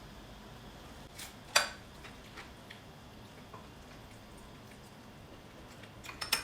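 Eating utensils clinking against plates and dishes: a softer clink, then a sharp one about a second and a half in, and a quick few more near the end.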